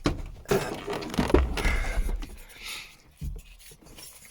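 Parts being handled by hand: rustling and scraping with a few dull knocks, fading out after about three seconds.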